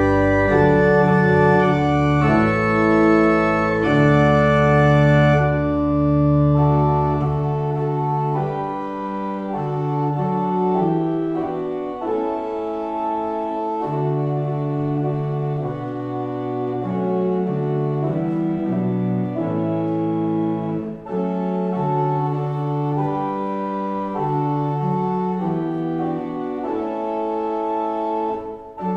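Church organ playing a postlude after the final blessing, in slow, held chords. Deep pedal bass notes drop out about seven seconds in and the playing goes on more lightly in the middle range.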